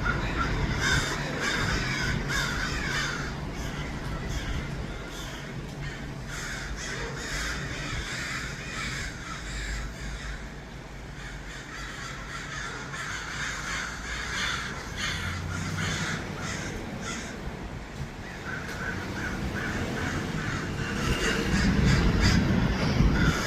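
A flock of American crows cawing again and again, many calls overlapping, busiest near the start and again near the end, over a steady low background rumble.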